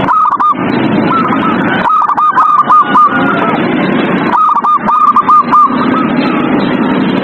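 Zebra dove (perkutut) calling: three runs of quick, repeated cooing notes, a short one at the start and longer ones about two and four and a half seconds in, over a steady rushing hiss.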